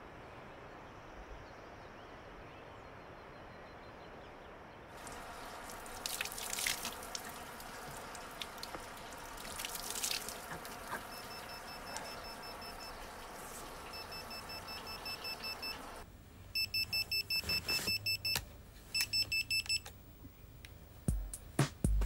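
Faint outdoor air noise, then water running from an outdoor tap into a metal trough with splashing as hands throw water on a face. From about eleven seconds, an old Nokia mobile phone beeps in repeated groups of rapid high beeps; music comes in near the end.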